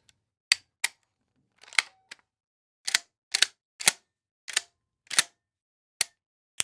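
A series of about ten short, sharp clicks or snaps from a weapons and metal sound-effects library, each one separate, with silence between.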